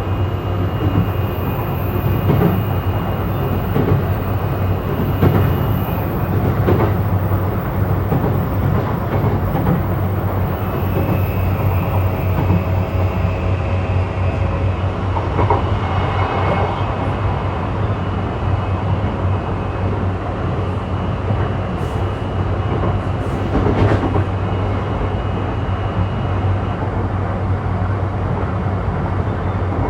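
Interior running sound of a JR East E235-1000 series electric multiple unit travelling at speed: steady wheel-on-rail rumble and a low motor hum, with a faint whine that comes and goes and a few clicks over rail joints.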